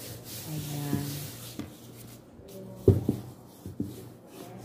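A gloved hand rubbing flour across rolled pie dough on a wooden board, then one sharp wooden knock about three seconds in as the wooden rolling pin meets the board, followed by a few lighter knocks.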